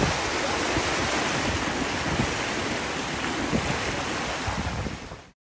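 Wind buffeting the microphone over water rushing and splashing past a boat under way on choppy water. It cuts off abruptly about five seconds in.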